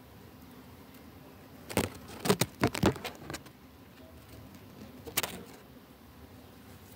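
A quick run of sharp clicks and rustles about two seconds in, then one more click about five seconds in, over a faint steady hiss.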